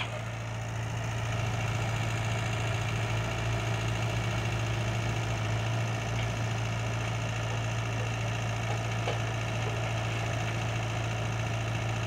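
Diesel engines running with a steady low drone: a small Komatsu D20P crawler bulldozer close by and a dump truck raising its tipper bed to dump a load of soil.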